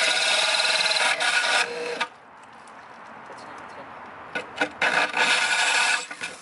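Corded power drill boring through an aquarium's glass panel, the bit grinding against the glass while water is poured on to cool it. It grinds in two spells: for about the first two seconds, then again from about four to six seconds in.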